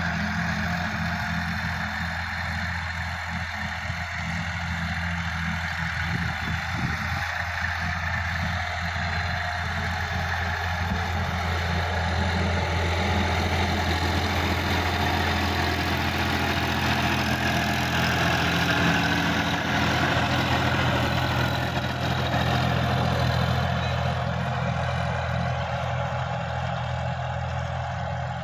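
Sonalika DI-50 RX tractor's diesel engine running steadily under load while pulling a rotary tiller through the soil. It grows louder toward the middle as the tractor passes close, then eases off as it moves away.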